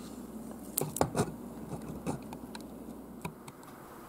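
A few light clicks and taps of a small plastic scale model being handled on a desk, three close together about a second in, over quiet room tone.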